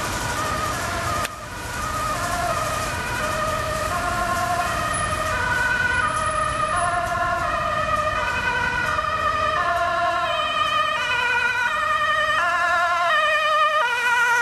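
Dutch ambulance's two-tone siren switching back and forth between a high and a low note about every half second, growing louder as the ambulance approaches.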